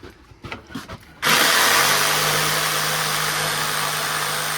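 Vacuum cleaner running, cleaning up sawdust: it comes in abruptly about a second in as a loud, steady rush of air with a low hum underneath.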